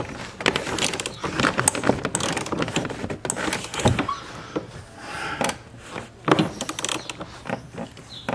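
Hand socket ratchet on a long extension clicking in quick runs with short pauses, as seat-mounting bolts are run down and tightened, with a few sharper knocks of the tool against the bracket.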